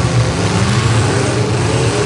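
Demolition derby trucks' engines revving, one climbing in pitch as it accelerates through the first second or so.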